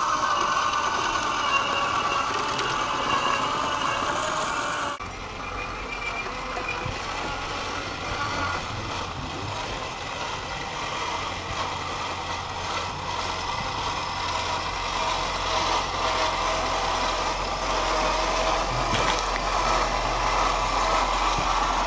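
Electric motor and gearbox of an RC4WD Trailfinder 2 scale crawler whining steadily as the truck crawls along, with a sudden change in the sound about five seconds in.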